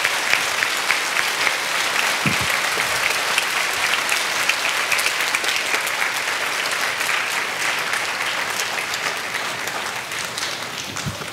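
A large audience applauding, a long round of clapping that slowly dies down toward the end.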